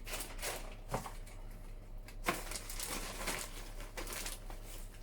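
Plastic packaging rustling and crinkling in irregular spells as it is handled.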